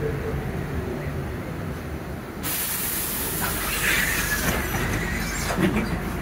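A city bus's engine rumbles low, then about two and a half seconds in a sudden loud hiss of compressed air bursts from the bus's pneumatics as it comes to a stop, lasting about three and a half seconds.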